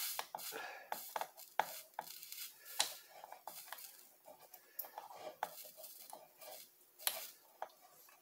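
Soldering iron tip scraping and clicking against the solder joints on the underside of a motherboard while a capacitor is desoldered, with the board being handled: irregular small clicks and scratches.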